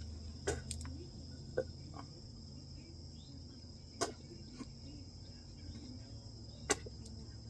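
Quiet background of a steady high-pitched chirring tone over a low hum, broken by a few short sharp clicks, about five in all.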